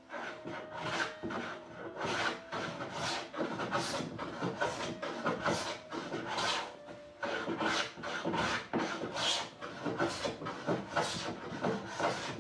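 A hand tool worked in repeated strokes against the wood of a door, a scraping, rasping sound at about two strokes a second.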